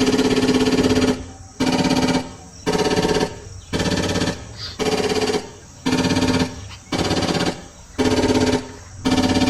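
Electronic rapid-fire sound effect of a toy AWM sniper rifle, playing in about nine short bursts roughly once a second, the first one longer than the rest.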